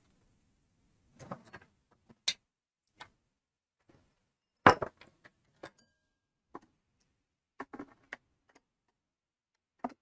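Scattered clicks and knocks of a screwdriver and screws being handled as the plastic top shroud of a Porter Cable compressor is screwed back on, the loudest knock about halfway through and a quick cluster of clicks near the end.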